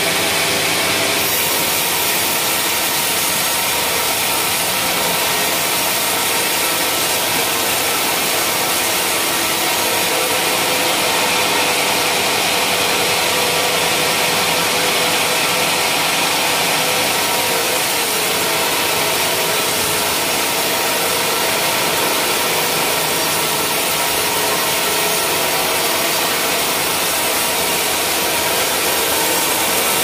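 Band sawmill blade ripping lengthwise through a wadang (Pterospermum javanicum) log: a steady, loud sawing noise with the machine's motor running beneath it.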